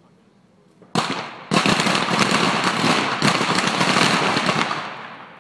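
Many pistols firing at once on a firing line: a single shot about a second in, then half a second later a dense run of overlapping shots lasting about three seconds that tails off near the end.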